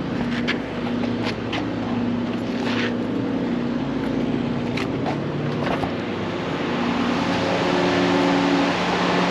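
A steady mechanical drone, like an engine or motor running, with a few light clicks over it. It grows slightly louder near the end.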